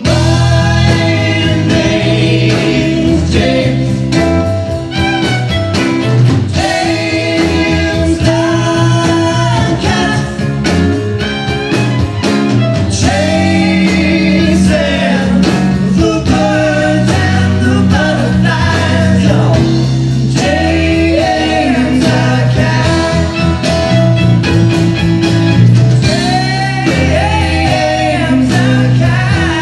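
Live band playing a song: acoustic guitar, electric bass and drums, with two voices singing together over them.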